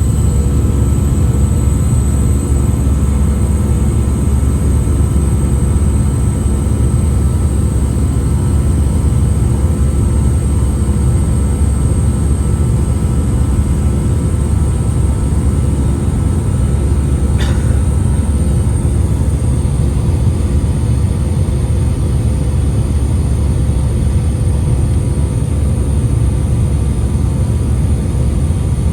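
Airbus A319 cabin noise in the climb: a steady heavy low rumble of engines and airflow, with a thin, very high whistle above it that creeps slightly up in pitch. The whistle is the strange cabin whistle that the passenger first noticed at liftoff and had never heard before. A brief click sounds about 17 seconds in.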